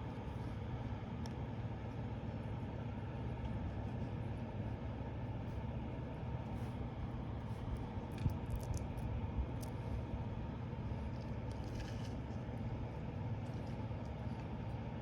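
Steady low hum of an engine running, with a few light clicks and taps past the middle.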